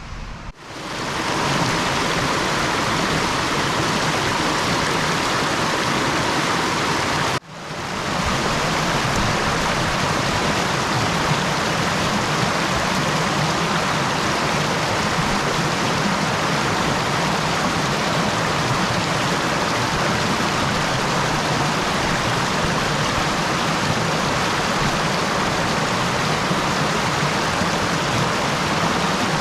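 Mountain stream running steadily and loudly, an even hiss of flowing water; it drops out briefly near the start and again about seven seconds in, then comes back up.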